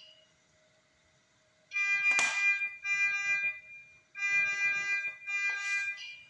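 Electronic medical-equipment alarm beeping: a flat, buzzy tone sounding in four bursts of up to a second each, starting nearly two seconds in. A brief rustle of handling comes during the first burst.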